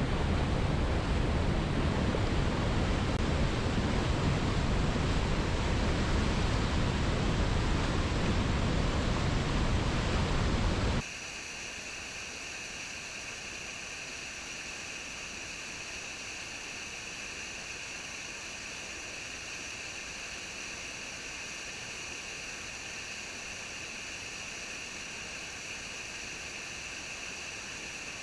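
Waterfall's steady rushing noise, full and deep. About eleven seconds in it drops suddenly to a quieter, thinner hiss with little low rumble.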